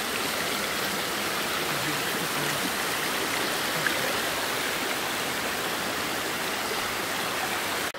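Hot-spring water pouring from small rock cascades into a thermal pool: a steady splashing rush that cuts off suddenly near the end.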